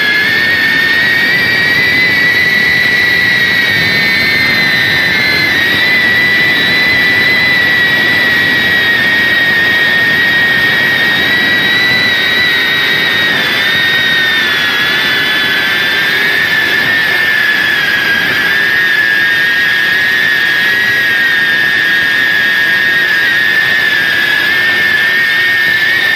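Electric motor and propeller of an FPV wing whining steadily in flight, heard from the onboard camera; the pitch wavers slightly as the throttle changes.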